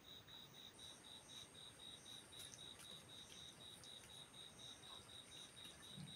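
Near silence with a cricket chirping faintly and steadily, about four even pulses a second at one high pitch.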